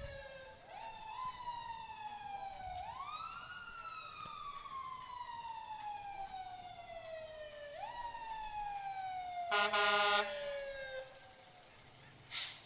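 Siren wailing: three times it rises quickly in pitch, then slides slowly back down. About ten seconds in there is a loud horn blast lasting about half a second, and near the end a short, sharp blip.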